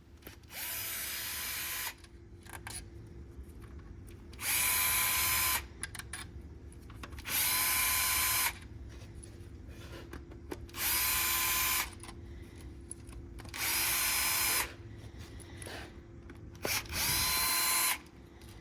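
Cordless drill-driver running in six short bursts, each spinning up quickly to a steady whine and then stopping, as it backs bolts out of an engine during teardown. Faint clinks of handling between the bursts.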